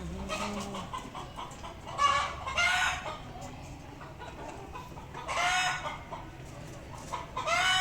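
Chickens clucking and calling, with three loud, drawn-out calls about two, five and seven and a half seconds in over softer clucking.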